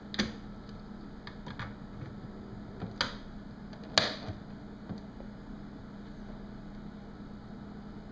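Plastic controls on a portable mini stereo clicking as they are worked by hand: a handful of short, sharp clicks, the loudest near the start and about four seconds in, over a faint steady hum.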